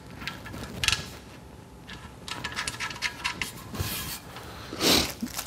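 Light metallic clicks and small rattles of hand-work on a steel tool cabinet, turning and fitting its parts, with a quick run of ticks in the middle and one louder brief scrape near the end.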